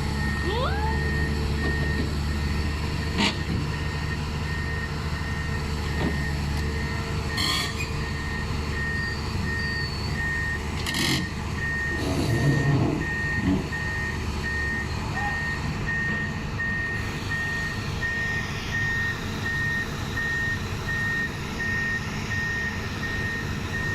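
A backup alarm on heavy equipment beeping steadily over a running engine. A few sharp metal clanks are heard along the way.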